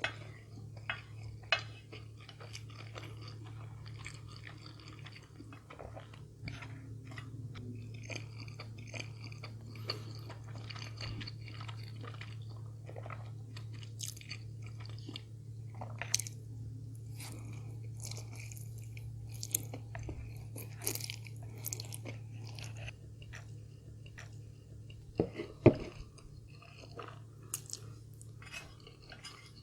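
Close-miked chewing and crunching of food, with many short wet mouth clicks and a few sharper bites near the end. A low steady hum runs underneath and stops about three-quarters of the way through.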